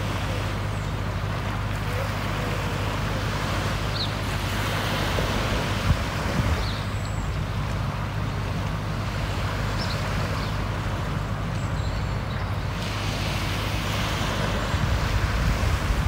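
Steady wind and rushing water noise over a low, steady hum, with a few faint short chirps.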